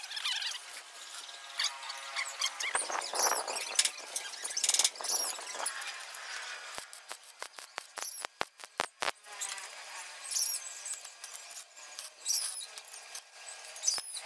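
Stick (arc) welding on a steel frame: the electrode crackles and sputters, with a run of sharp clicks around the middle. Short high squeaky chirps sound over it now and then.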